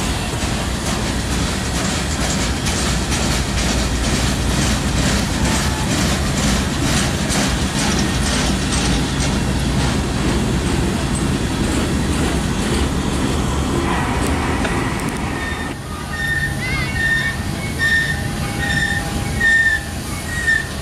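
Freight train of flatcars rolling past close by: a steady rumble of wheels on rail with light regular clicking. About three-quarters of the way through the rumble drops away and a high ringing tone starts repeating, roughly every two-thirds of a second.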